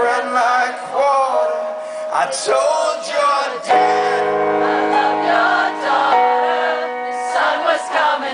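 A man singing live with an acoustic guitar. Fresh guitar chords ring out about four seconds in and again about six seconds in, beneath the voice.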